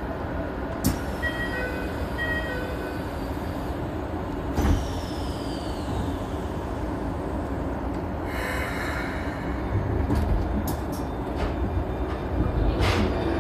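Keikyu New 1000 series electric train running, heard from inside the car: a steady rumble of wheels and running gear with a few sharp knocks, brief steady tones about a second in and a falling high whine about five seconds in.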